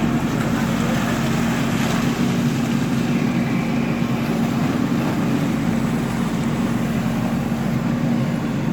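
Diesel engine of a JCB earthmover running steadily, a continuous low drone with no clear impacts.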